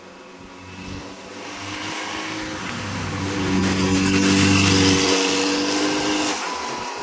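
Motorcycle engine riding past: the engine note grows louder as it approaches, is loudest about four to five seconds in as the bike passes close by, then fades as it rides away.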